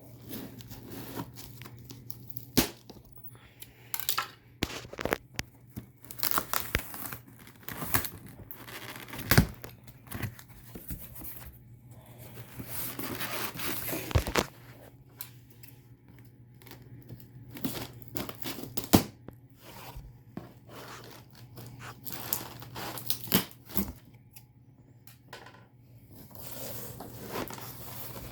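Packing material being torn open and crinkled while a boxed ceiling fan is unpacked. Irregular sharp knocks and clacks as parts are handled, with a longer stretch of tearing about halfway through.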